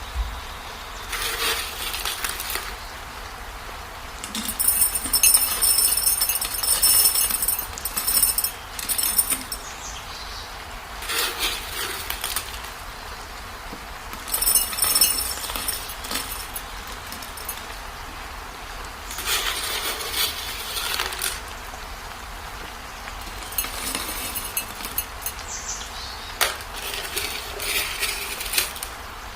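Loose material poured into a glass bottle, rattling and clinking against the glass in about seven separate bursts with short pauses between them.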